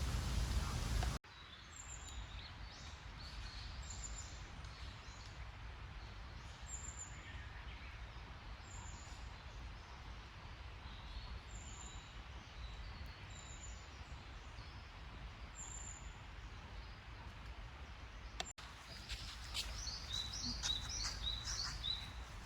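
Birds calling over a faint outdoor hum: a short high chirp repeats about every second and a half. After a cut near the end, a quicker run of chirps follows.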